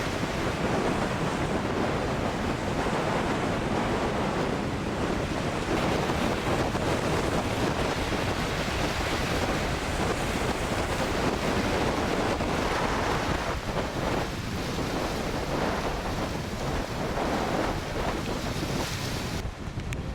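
Strong hurricane wind buffeting the microphone over rough, crashing surf: a loud, steady rushing noise. The sound changes abruptly near the end.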